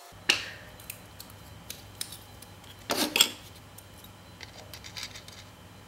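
Sharp clicks and clinks of small hand tools, a plastic pry tool and needle-nose pliers, against the plastic shell and parts of an opened wireless mouse. One loud click comes just after the start, a quick cluster of clicks about three seconds in, and small ticks in between.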